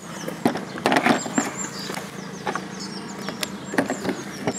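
Scattered clicks and knocks of hands refitting electrical plug connectors and seating a plastic engine cover in an engine bay.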